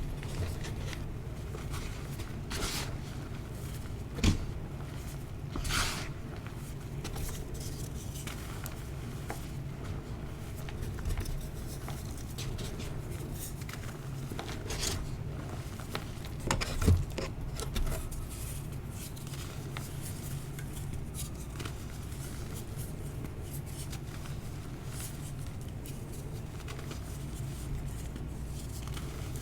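Dyed gym chalk being crushed and crumbled by hand: scattered soft crunches and crumbling, with a few sharper crunches, the loudest just past halfway, over a steady low background rumble.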